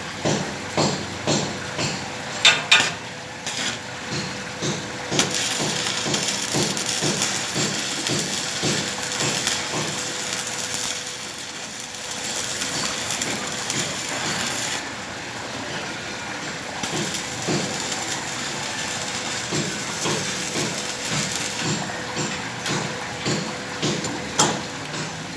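Hammer knocks on metal, a strong pair about two and a half seconds in. Then a steady crackling hiss of arc welding runs for about ten seconds, followed by more scattered knocks and crackle.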